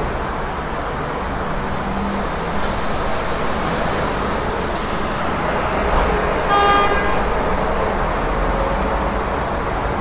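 Busy city street traffic: a steady wash of car engines and tyre noise, with one short car horn honk about six and a half seconds in.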